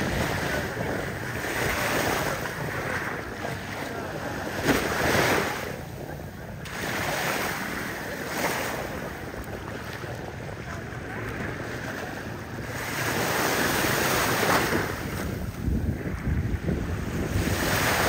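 Small sea waves breaking and washing on the shore, swelling and falling back every few seconds, with wind buffeting the microphone.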